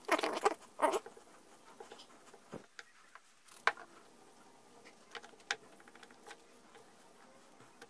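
Wad of toilet paper rubbing Brasso polish over an etched carbon steel knife blade, polishing off the black oxides left by the etch: a few loud rasping rubs in the first second, then quieter scattered scratches and light clicks.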